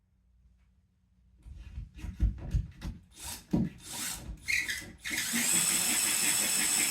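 Knocks and handling of the drill and screw, then a power drill with a screwdriver bit running steadily for about two seconds near the end, driving in a screw.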